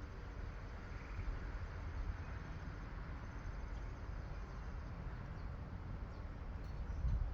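Gusty wind buffeting the microphone at the onset of a severe thunderstorm, a choppy low rumble that gusts harder near the end.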